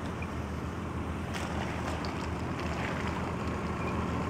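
Nissan Patrol 4WD engine running at low revs as it creeps into a muddy water crossing, with water washing around its tyres; the sound grows slightly louder as it comes closer.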